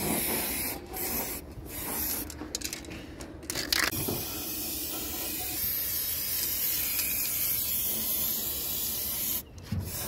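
Aerosol spray paint can hissing: several short bursts with brief stops at first, then one long continuous spray from about four seconds in, broken by a short pause near the end.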